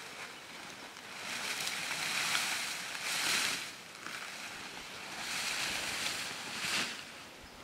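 Wind rushing through dry grass, maize stalks and trees in two surf-like gusts, the first swelling about a second in and the second around five seconds in.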